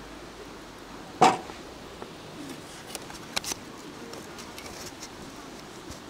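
A hard object set down or knocked: one sharp knock with a brief ring about a second in, then a couple of light clicks, like camp kitchenware being handled.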